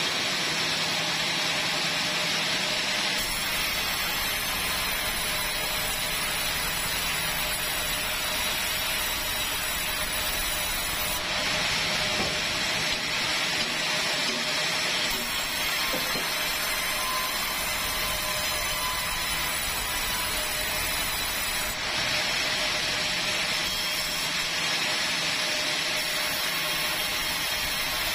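Sawmill band saw running steadily while timber is handled and fed on the roller table: a loud, even mechanical noise with one constant tone running through it.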